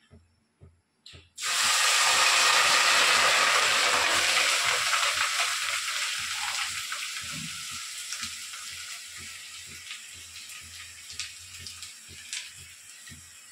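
Boiled rice hitting a hot pot on the gas stove and sizzling. The sizzle starts suddenly and loudly about a second and a half in, then fades slowly over the next ten seconds.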